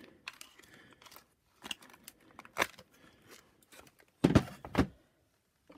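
Clicks and rattles of the plastic housing of a disassembled vacuum power nozzle being handled and turned over, with a couple of heavier knocks a little over four seconds in.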